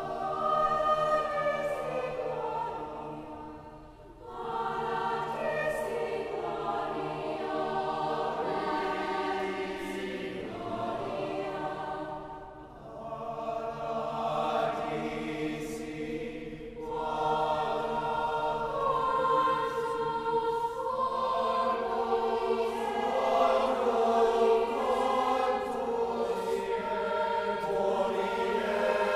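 Choir singing slow, sustained chords in long phrases, with short breaks between phrases about four seconds in and again near the middle.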